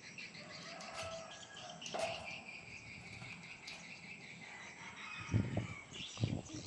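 Insects chirring steadily in the background, with two dull low thumps near the end.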